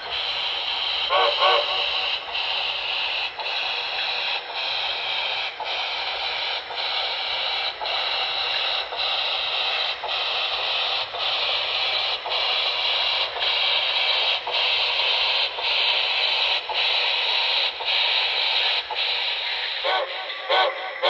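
Sound-equipped HO-scale model steam locomotive playing steam sounds through its small onboard speaker: a steady steam hiss in a slow chuff rhythm of about one beat a second. Two short whistle toots sound about a second in, and two more come near the end.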